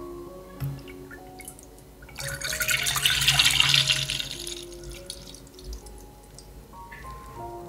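Milk poured in a steady stream into a stainless steel pot, starting about two seconds in with a loud splashing patter, then quieter once the stream lands in milk. Light background music with single melody notes plays throughout.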